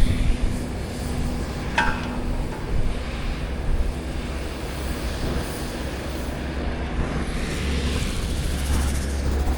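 Steady low rumble of wind on the microphone and vehicles in a snowstorm street, with a faint steady engine hum and a short high squeak about two seconds in.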